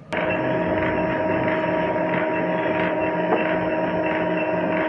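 Steady mechanical hum with several steady tones in it, starting abruptly just after the start.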